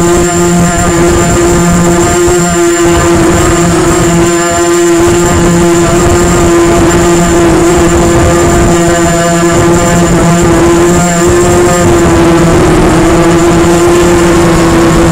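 Quadcopter drone's electric motors and propellers whining steadily in flight, heard close up through the drone's own onboard camera, with a small dip in pitch near the end.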